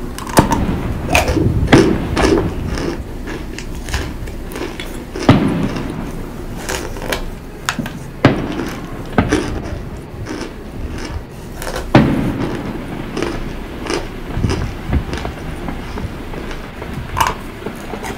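Close-up crunching and chewing of hard cornstarch chunks: an irregular run of crisp crackles, broken by several sharper, louder bites.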